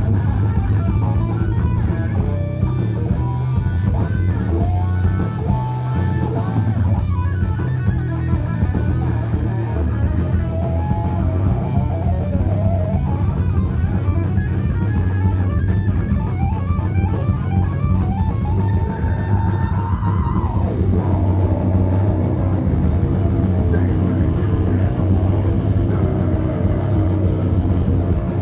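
Live heavy rock band playing loud, with electric guitars over a drum kit; a note slides down in pitch about twenty seconds in.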